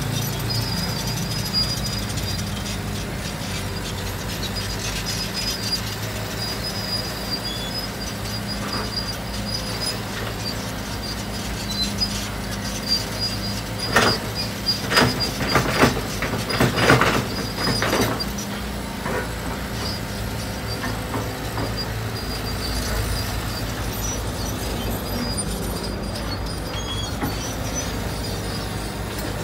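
Kobelco crawler excavator's diesel engine running steadily as it works its hydraulic arm and bucket, with a run of several clanks and knocks about halfway through.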